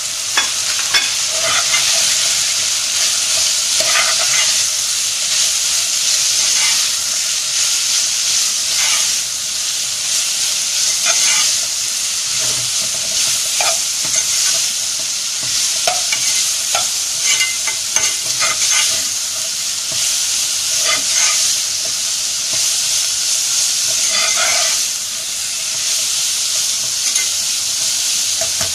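Shredded cabbage and capsicum stir-frying in hot oil in a pan: a steady sizzle, with the spatula scraping and clicking against the pan at irregular moments.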